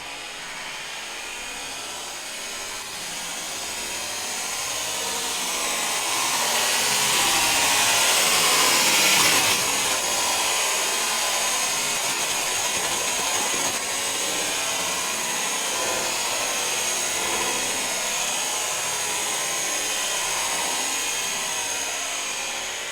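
Ground fountain firework spraying sparks with a steady hiss that grows louder over the first nine seconds or so, then holds and eases off slightly near the end.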